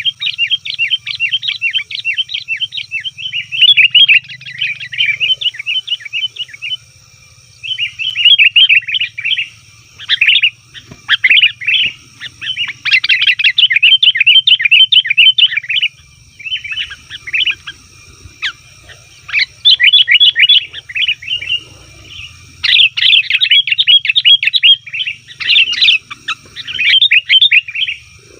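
Sooty-headed bulbuls (kutilang) calling noisily: rapid, chattering bubbly notes in bursts of a second or a few seconds, with brief pauses between bursts.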